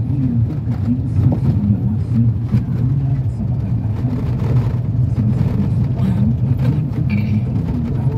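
Steady engine and road noise of a moving vehicle heard from inside the cabin.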